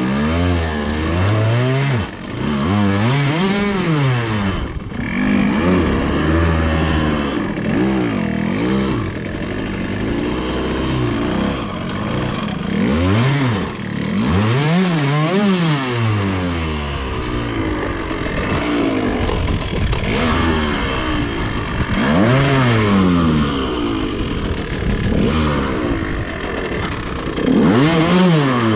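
Dirt bike engine revving up and dropping back again and again in short bursts of throttle, the bike being worked at low speed through dense brush on a steep technical climb.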